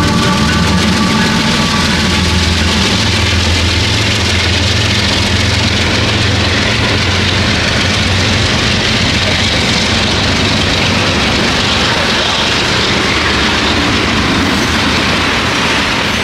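A CSX freight train passing close by: two diesel locomotives' engines run with a steady low drone, then freight cars roll past with a steady rumble of wheels on rail.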